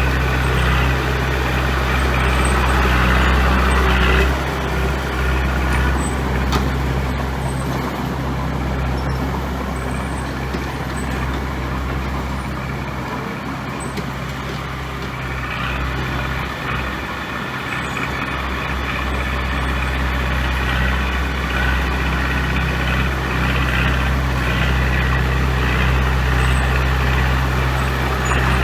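Heavy diesel engine of a dump truck or bulldozer running steadily, easing off for a few seconds in the middle before picking up again.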